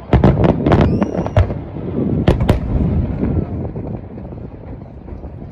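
Aerial fireworks shells bursting in quick succession: a cluster of sharp bangs in the first two and a half seconds, then the reports die away into a low rolling rumble.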